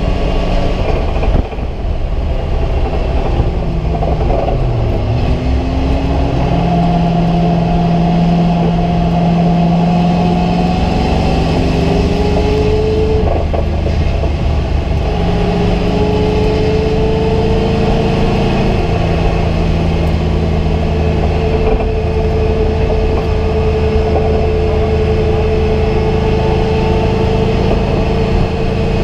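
Race car engine heard from inside the caged cockpit under hard acceleration, its pitch repeatedly climbing, dropping and climbing again through gear changes and lifts, over a steady rush of road and wind noise.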